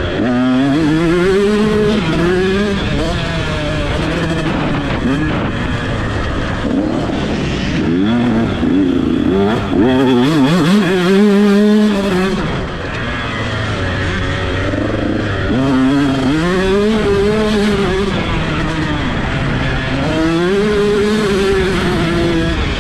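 A 125cc two-stroke motocross bike's engine heard close up from on board, run hard, its pitch climbing repeatedly through the gears and falling back as the throttle is rolled off, with a short drop in revs about halfway through.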